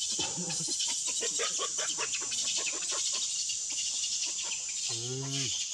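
Chickens clucking in short, quickly repeated calls over a steady high insect drone. One brief pitched call stands out about five seconds in.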